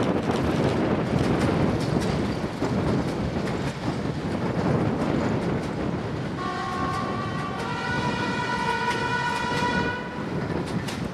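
Class 31 diesel locomotive and its coaches rumbling past, with wind buffeting the microphone. About six seconds in, the locomotive's two-tone horn sounds, one note and then the other, for about three and a half seconds.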